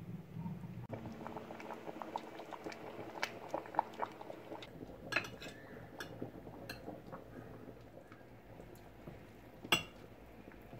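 A pot of food simmering with small bubbling pops while a metal spoon serves from it onto a ceramic platter. The spoon clinks against the dish a couple of times, most sharply near the end.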